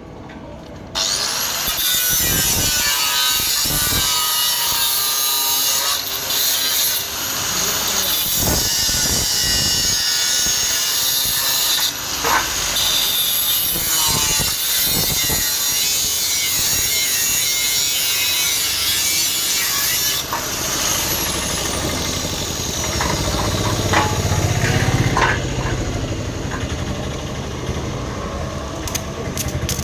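A high-speed handheld power cutting tool cutting through material, its motor whining up to speed about a second in and winding down about twenty seconds in.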